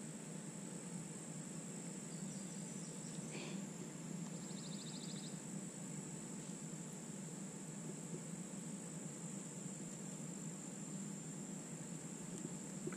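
Faint outdoor ambience: a steady high-pitched insect drone, with a brief rapid trill a little past four seconds in.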